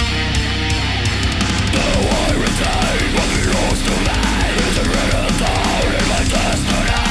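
Heavy rock music with a dense, loud full-band sound; the arrangement shifts into a new section about two seconds in.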